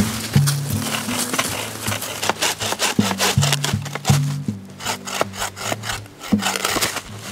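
Folding buck saw cutting through a log: quick back-and-forth strokes of the blade rasping through the wood, with background music underneath.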